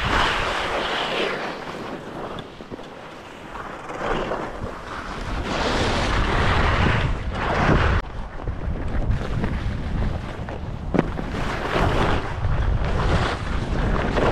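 Skis scraping and hissing over packed, chopped-up snow through a run of turns, the scrape swelling and easing every couple of seconds, over a steady low rumble of wind on the microphone.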